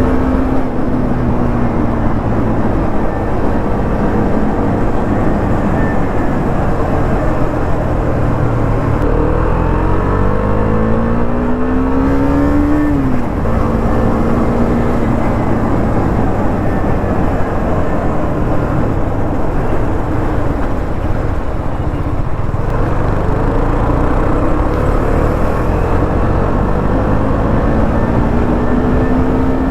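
KTM motorcycle engine on its stock exhaust, running under load beneath a heavy, steady rushing noise. Its pitch climbs and then drops sharply about halfway through, and climbs again near the end.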